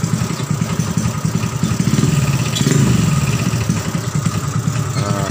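Motorcycle fitted with a Yamaha Vega engine, idling steadily, with a brief rev that falls back about three seconds in.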